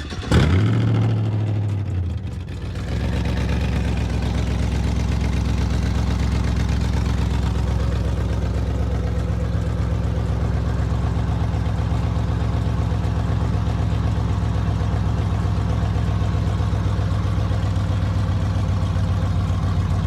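Truck engine catching on a cold start. It runs at a raised fast idle for about two seconds, then drops and settles into a steady idle.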